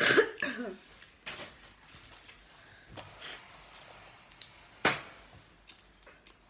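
Handling of paper food packaging and a fries carton on a table: rustling and a few sharp clicks and knocks, loudest right at the start and again about five seconds in.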